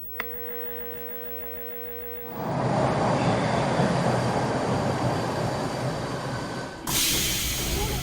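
Subway train sound effects. A faint steady hum gives way, about two seconds in, to the loud rumble of the train running, and a sharp hiss cuts in near the end.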